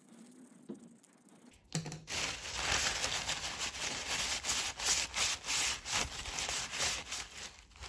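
Paper towel scrubbed hard in quick repeated strokes around the inside of a small metal carburettor float bowl, starting about two seconds in, working off built-up fuel residue.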